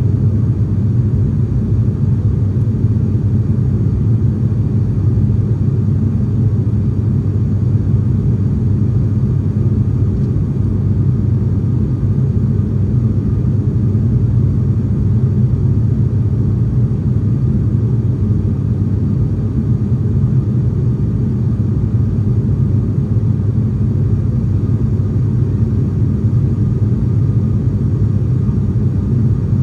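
ATR 42 turboprop's engines and propellers heard from inside the passenger cabin: a deep, steady drone that holds unchanged throughout.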